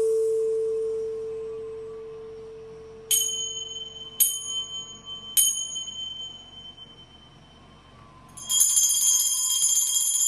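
A crystal singing bowl's steady hum fading away, then a small hand bell struck three times about a second apart, each stroke ringing on; near the end the bell is shaken continuously in a bright, steady jingling ring.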